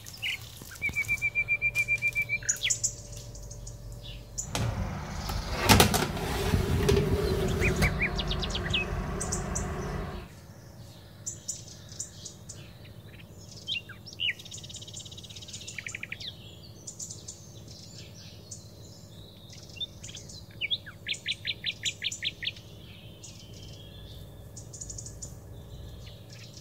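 Songbirds chirping and singing: short high calls, a steady trill near the start and a quick run of repeated notes near the end. A loud rushing noise rises about four seconds in and cuts off suddenly about ten seconds in.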